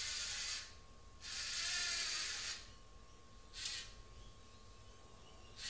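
Lego NXT servo motors and gears whirring in two short runs as the robot drives, followed by a single sharp click.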